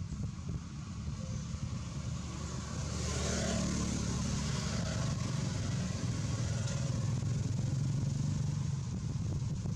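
Low hum of a running motor engine, steady, growing louder about three seconds in.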